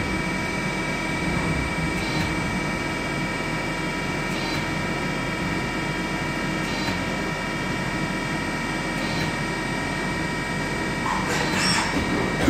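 INDEX ABC CNC lathe running: a steady whine of several held tones from the spindle and axis drives over a constant low hum, with a faint short sound recurring about every two and a quarter seconds. A louder, noisier stretch comes in about eleven seconds in.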